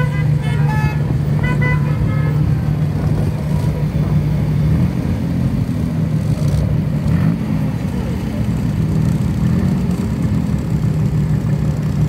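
Several short car horn toots in the first two seconds or so, over the steady low running of a slow procession of classic cars' engines. The engines carry on without the horns for the rest of the time.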